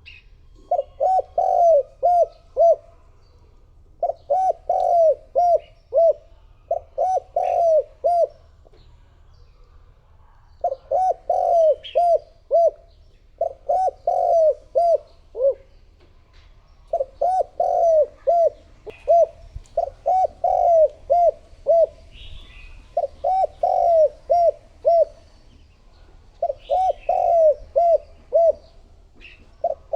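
A spotted dove cooing its territorial song, as used to lure wild doves. Each phrase is a quick run of four to six low coos, repeated about every three seconds. Faint chirps from small birds sound in the background.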